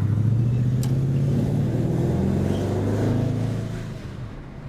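Holden 308 V8 in a Series 2 Jaguar pulling under throttle, its pitch rising slightly, then easing off about four seconds in as the throttle comes off.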